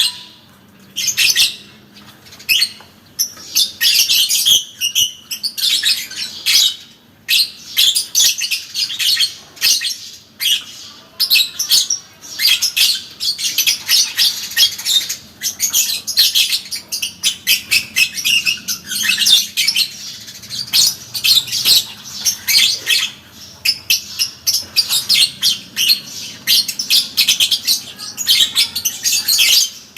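Parblue lovebird doing its long 'ngekek' chatter: rapid, harsh high chirps run together in long stretches, broken by short pauses.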